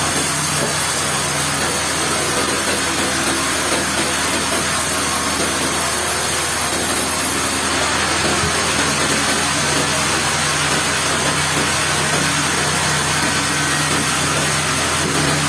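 Sawmill saw and its engine running steadily under load, cutting a trembesi (rain tree) log, with a low hum and a broad hiss. A high hiss drops away about halfway through.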